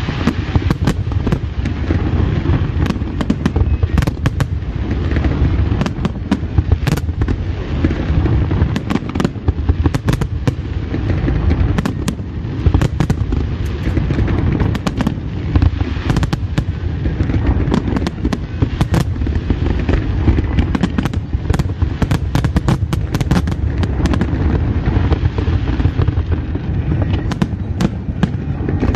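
Fireworks display going off in a continuous barrage: many sharp bangs and crackles in quick succession over a steady low rumble.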